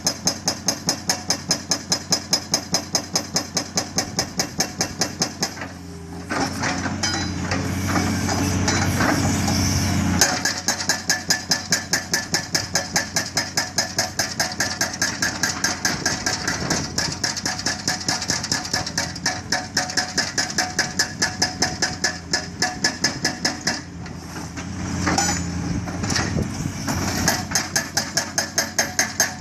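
Montabert hydraulic breaker on a tracked excavator pounding rock in rapid, evenly spaced blows, several a second. The blows stop for a few seconds about six seconds in and again near the end, while the excavator's diesel engine is heard working as the boom repositions.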